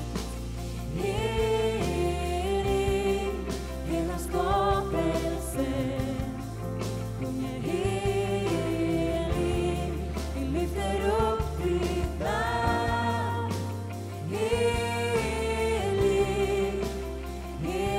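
Live worship music: a band with held low chords under sung, wavering melody lines.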